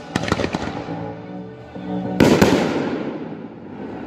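Aerial fireworks going off, with a quick run of sharp cracks at the start and a loud burst a little over two seconds in that booms and dies away. Music plays underneath.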